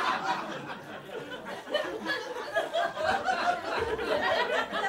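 Comedy club audience laughing after a punchline. The laughter dips about a second in, then swells again with scattered laughs.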